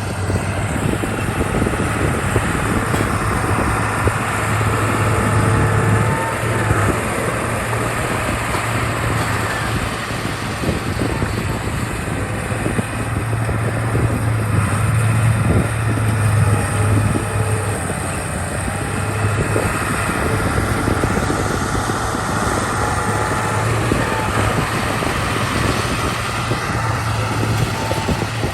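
Heavy diesel engine of construction equipment running steadily under work, with a constant low hum and a slight rise and fall in loudness.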